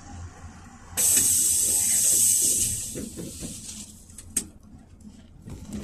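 A sudden loud hiss of compressed air let out by the PAZ-32053 bus's pneumatic system, starting about a second in and dying away over about two seconds, over the low hum of the bus's ZMZ-5234 gas engine. A sharp click a little after the middle.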